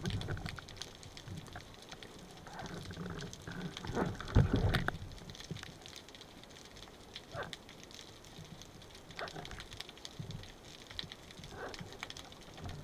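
Underwater sound through a camera housing: a steady crackle of small clicks, with a few louder low rushes of water as the diver swims, the strongest about four to five seconds in.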